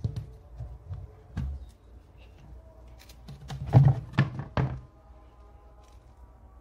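White plastic earth-pit cover being lifted by its handle and laid aside on a tiled floor: a few light clicks and knocks, then a cluster of about four loud plastic knocks a little under four seconds in.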